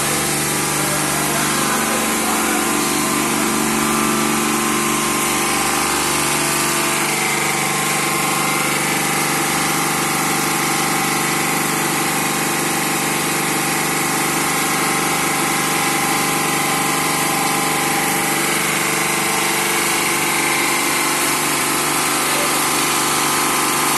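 Robotic undercarriage car-wash system running: a steady machine hum under the hiss of high-pressure water jets from its rotating and oscillating zero-degree nozzles.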